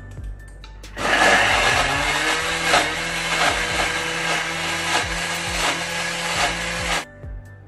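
Thermomix TM6 running at speed 10, blending ginger, garlic, onion, turmeric, shrimp paste and chillies into a spice paste. The motor starts about a second in with a rising whine as it spins up, runs loud and steady, then cuts off abruptly about seven seconds in.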